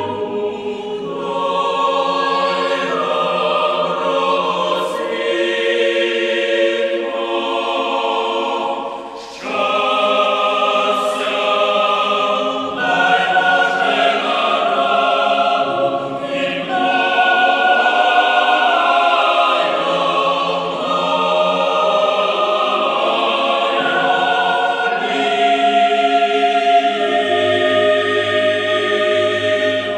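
Choir singing slow, sustained chords in harmony, the chords shifting every second or two, with a brief drop in loudness about nine seconds in.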